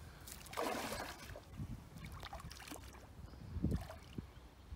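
Water splashing and sloshing in irregular bursts as a small hooked fish is drawn in at the water's edge, with a dull low knock about three and a half seconds in.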